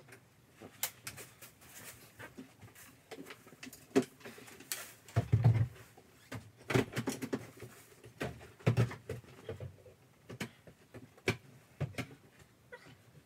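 Rummaging in a closet: scattered clicks, knocks and rustles of clothes, hangers and items being moved about, with a heavier thump about five seconds in.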